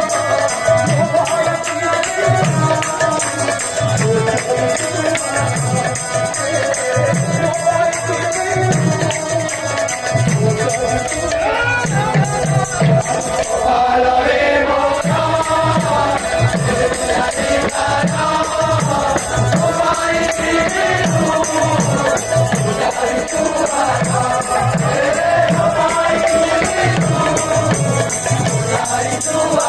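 Kirtan: voices singing a devotional chant-like song, with a steadily beating drum and jingling hand cymbals.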